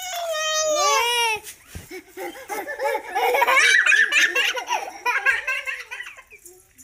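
Young children laughing and giggling together, after a few high, falling cries in the first second and a half.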